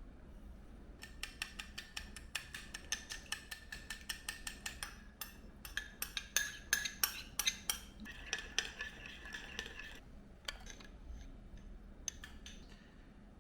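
A metal utensil clinking rapidly against metal cookware, about four or five strikes a second with a ringing tone. The strikes stop about ten seconds in, and a few more clinks follow.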